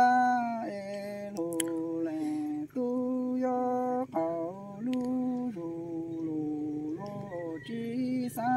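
A woman singing unaccompanied Hmong sung poetry: long, level held notes that slide from one pitch to the next, with short breaks between phrases.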